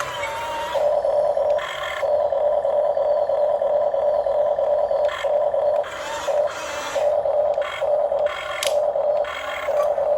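Remote-control excavator's electric motors and gearing whining, getting louder and softer in irregular stretches as the controls are worked.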